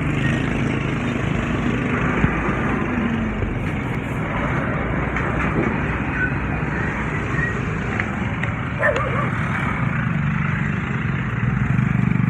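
Steady engine and road noise from a moving motor vehicle.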